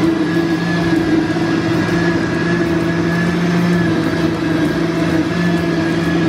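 Countertop glass-jar blender running steadily at full speed, puréeing strawberries and ice into a smoothie: a loud, even motor whine.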